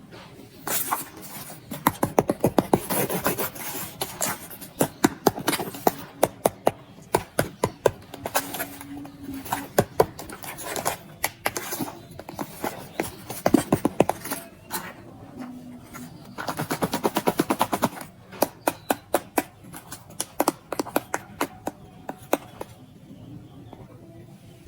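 Kinetic sand being cut and pressed, giving runs of crisp, rapid crunching clicks that come in bursts several a second and thin out near the end.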